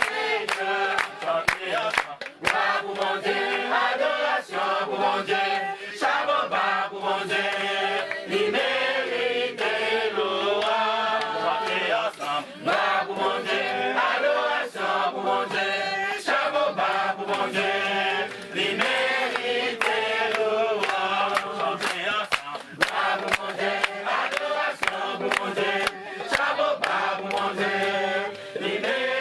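Background music: a group of voices singing a chant-like song, with sharp percussive hits throughout.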